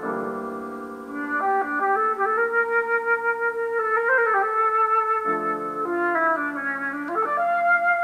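Instrumental music: a melody of long held notes over sustained chords, the notes changing every second or two.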